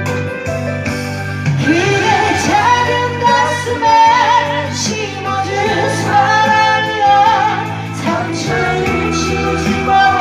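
A person singing a pop song into a Bluetooth karaoke microphone over its backing track; the voice comes in about a second and a half in.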